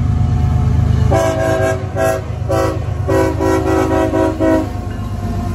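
Diesel locomotive's multi-chime air horn sounding a series of blasts over the heavy low rumble of a passing train: a long blast, two short ones, then a longer one ending about 4.5 seconds in.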